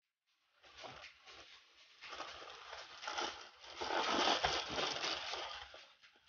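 Plastic courier mailer crinkling and tearing as it is pulled open by hand. It starts about half a second in and is loudest in the second half.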